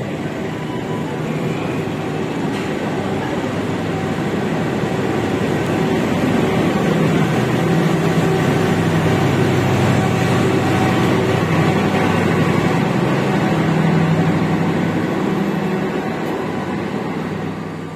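Passenger train carriages rolling past along the platform, wheels running on the rails with a steady low hum; the sound swells toward the middle and eases off near the end.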